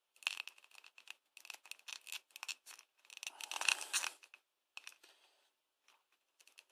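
Clear plastic coin capsule handled in the fingers: a run of small clicks and scrapes of hard plastic, busiest over the first four seconds, then a few scattered clicks.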